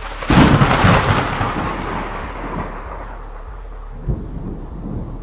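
Thunderclap: a sudden crack about a third of a second in, rolling off into a long fading rumble. A shorter low thud comes about four seconds in.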